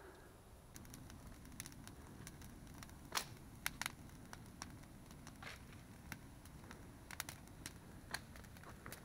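Wood campfire crackling: faint, irregular sharp pops, the loudest about three seconds in, over a low steady rumble.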